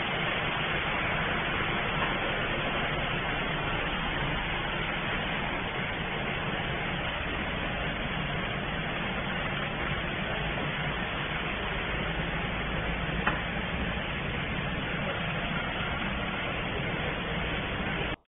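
Steady hum and hiss of a running cable production line, with a single small click about thirteen seconds in.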